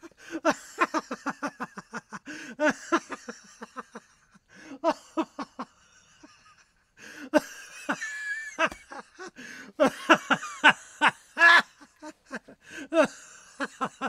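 Runs of rapid, high-pitched laughter, broken by a short pause about four seconds in and a longer gap around six seconds.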